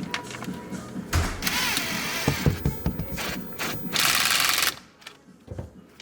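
Socket ratchet clicking as a bolt is turned, with rapid clicking for under a second about four seconds in, among other tool and metal handling noise.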